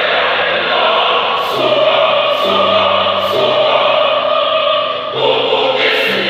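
Choir singing in parts, with low voices holding long bass notes under the higher voices and a few crisp 's' sounds cutting through together.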